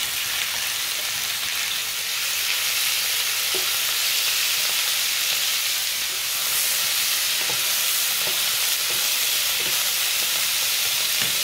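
Strips of raw turkey breast searing in hot clarified butter in a frying pan: a steady sizzle with a few small pops.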